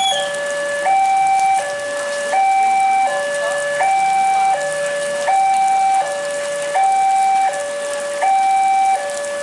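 Railway level-crossing warning alarm sounding a steady two-tone signal, a higher and a lower tone alternating about every three-quarters of a second, warning that a train is approaching.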